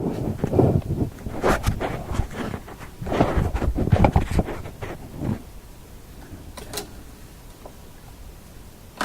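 Handling noise on a workbench: irregular rustling and clunks as test leads and clips are moved, quieter after about five seconds.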